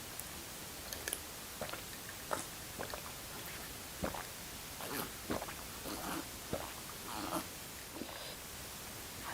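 Close-miked eating of kwetiau noodle soup with fish: wet chewing and mouth smacks with a scattering of short clicks, busiest in the second half.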